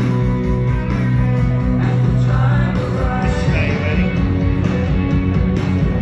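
Rock band playing through a large outdoor PA, heard from a distance: amplified bass notes and electric guitar.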